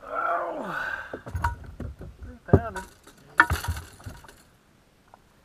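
A short voice sound, then a few sharp clinks and knocks, the two loudest about two and a half and three and a half seconds in, some with a brief metallic ring.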